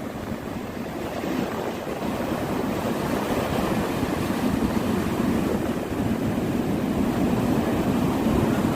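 Sea waves breaking and washing up a beach: a steady rushing surf that swells and eases a little.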